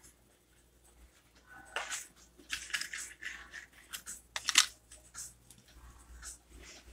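Irregular rustling, scraping and clicking, as of things being handled on a table, starting about two seconds in, with one sharp click a little after halfway.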